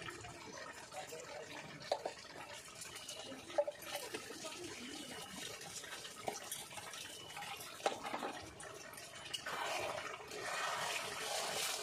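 Chicken curry simmering and sizzling in a metal kadai over a wood fire, with a few sharp taps. From about nine and a half seconds a metal spatula stirs through the pan and the sizzling grows louder.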